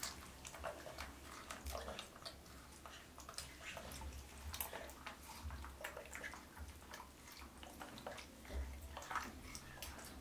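Small, irregular splashes and drips of water in a plastic tub as a wet baby macaque shifts about in it, with soft scattered clicks.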